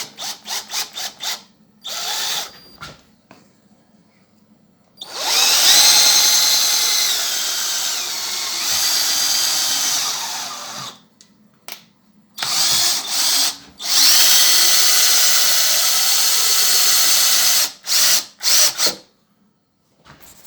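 Electric drive motors of a home-built CNC milling machine running under manual control during a first test. They whine in several short jogs and two longer runs, the pitch rising as a run speeds up and falling as it slows.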